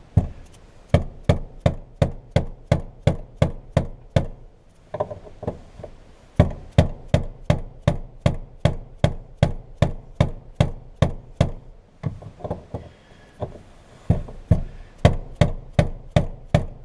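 Small hammer striking a screwdriver set against a fuel pump lock ring, steady sharp knocks about three a second in runs broken by two short pauses, driving the tight ring counterclockwise to loosen it.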